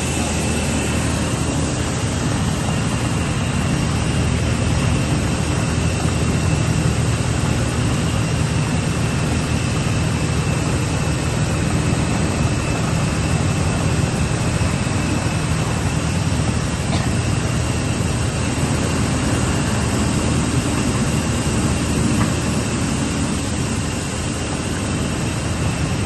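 Cascade-type plastic pelletizing line with two extruders running: a loud, steady machine drone with a low hum and a faint high whine.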